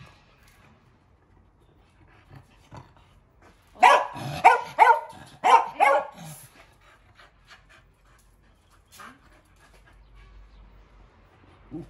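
A dog barking about five times in quick succession, starting about four seconds in.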